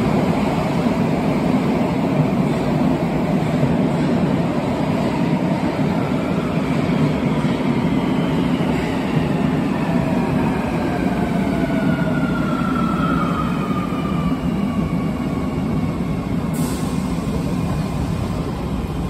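Osaka Metro 30000 series subway train pulling into an underground station and braking: steady rumble of wheels on the rails, with the whine of its inverter-driven traction motors falling in pitch as it slows. A brief hiss near the end.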